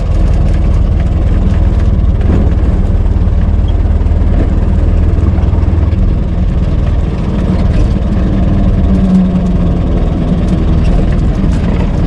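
1926 Ford Model T being driven, its four-cylinder side-valve engine running steadily with a low, even drone.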